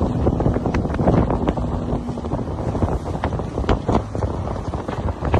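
Wind buffeting and rumbling on the microphone aboard a fishing boat at sea, with irregular thumps. A faint steady hum runs under it and stops about two seconds in.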